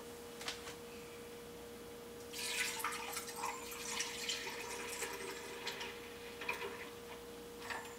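Almond milk poured from a carton into a blender jar, the liquid splashing into the jar. The pour starts about two seconds in and stops near the end, over a faint steady hum.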